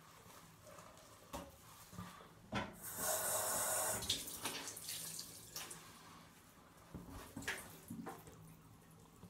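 A bathroom tap runs into the sink for about a second, roughly three seconds in, as a flannel is rinsed under it. Around it come fainter, scattered rubbing and dabbing sounds of the wet flannel being worked over the face.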